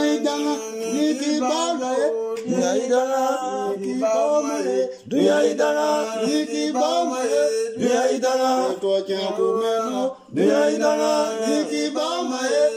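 Singing voice in a chant-like song, delivered in short repeated phrases of about two and a half seconds with brief breaks between them.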